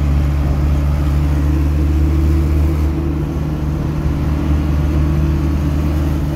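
Vehicle engine running steadily while driving, heard from inside the cab as a steady low drone with road noise.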